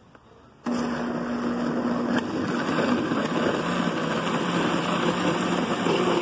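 Electric countertop blender switched on about a second in and running steadily, blending boiled dried chiles with water, garlic and anise into salsa. Its motor hum drops a little in pitch about three seconds in.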